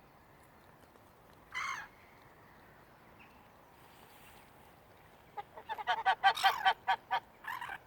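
Geese and gulls calling: one short call about a second and a half in, then a quick run of harsh repeated calls over the last couple of seconds, the loudest part, and a short call at the very end.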